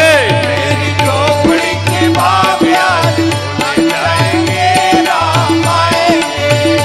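Bhajan music, apparently an instrumental passage: a gliding melody over a steady drum beat of about two strokes a second.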